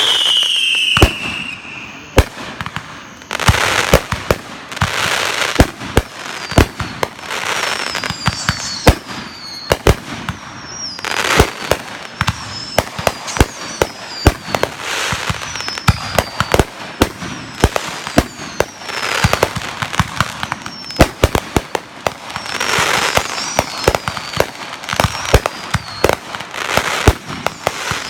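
A continuous barrage of consumer fireworks: many sharp bangs and crackles, with swells of hiss and short whistles that fall in pitch throughout.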